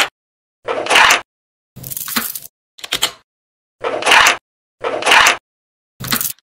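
Small steel magnet balls rattling and scraping as a plastic card is pushed down between the layers of a magnetic ball cube to split it. The sound comes in short bursts about once a second, with silence between.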